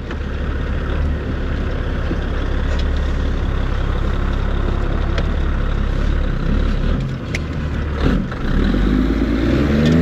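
Heavy diesel semi-truck engine running with a steady low rumble as the rig pulls away with an oversize load. The engine note rises as it accelerates near the end.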